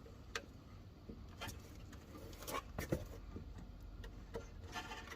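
Scattered light clicks and knocks from hands working at the electronic handbrake control module and its wiring plug, with a small cluster of sharper knocks about three seconds in.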